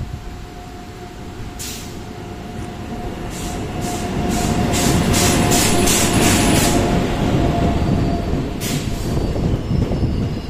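Express train hauled by an electric locomotive approaching and running past along the platform, getting louder from about three seconds in. It carries a steady tone and a quick run of sharp wheel clacks in the middle, over a heavy rolling rumble.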